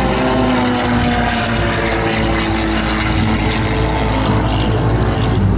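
Two single-engine propeller aerobatic planes flying over in formation, their engines running with the pitch falling as they pass.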